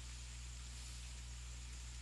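Steady low hiss with a faint low hum: room tone with no distinct sound events.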